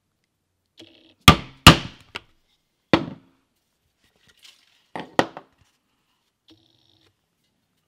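Mallet striking a pricking iron to punch stitching holes through shell cordovan leather on a board over a granite slab: sharp knocks, a quick group of three or four about a second in and a close pair about five seconds in.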